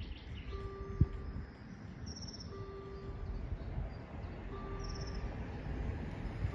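Electronic warning bell of a BUES2000 railway level crossing sounding a short two-pitch tone once every two seconds, warning that a train is approaching. A single sharp knock about a second in, and a bird chirps a few times.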